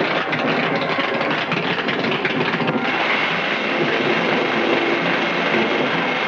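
Laboratory electrical apparatus buzzing and crackling with sparks. A dense crackle for the first three seconds or so gives way to a steadier electrical hum and hiss.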